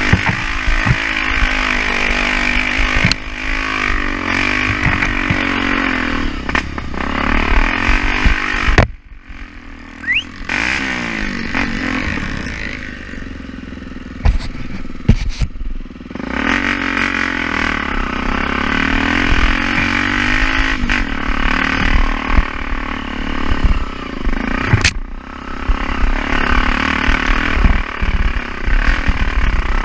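Trail motorcycle engine running and revving, its pitch rising and falling with the throttle, with scattered knocks and rattles. It drops to a lower, quieter running for a few seconds about nine seconds in.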